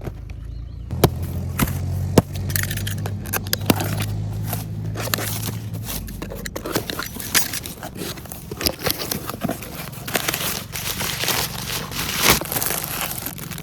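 Packaging crinkling and crackling as it is handled, with many irregular sharp clicks and rustles, while a die-cast toy tractor is unboxed. A low hum runs under the first half and stops about six seconds in.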